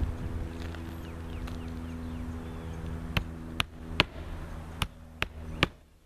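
Claw hammer striking roofing nails into a newly set asphalt shingle: six sharp strikes in two quick groups of three, starting about halfway through, over a steady low background hum.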